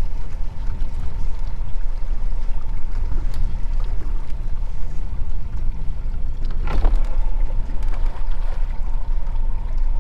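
Wind rumbling on the microphone and water lapping against a small fishing boat on choppy water, with a faint steady high whine. A single knock sounds about two-thirds of the way through.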